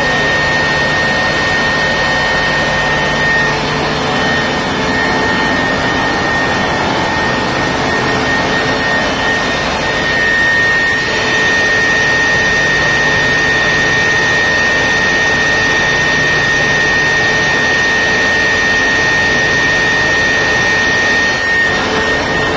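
Abnormal sound in the impulse line of a motor-driven boiler feed pump: a loud steady rushing noise with a high whistling tone that grows stronger about ten seconds in and dips briefly near the end.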